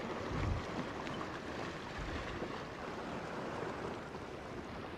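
Sea water washing and splashing at the foot of a shore rock as a hooked Japanese opaleye is drawn into a landing net, with a couple of low wind buffets on the microphone.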